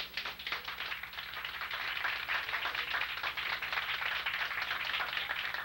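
Audience applauding, a dense patter of many hands clapping that builds over the first couple of seconds and then holds steady.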